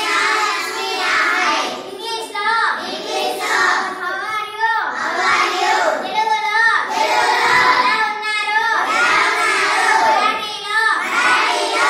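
Children's voices reciting lesson phrases in a sing-song chant, in short repeated phrases about every two seconds, each ending on a falling pitch.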